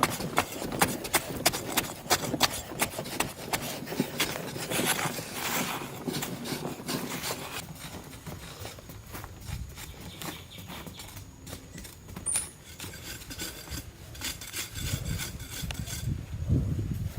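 Hand tools knocking and scraping: many irregular sharp knocks, densest in the first half and sparser later, with rubbing and scraping between them.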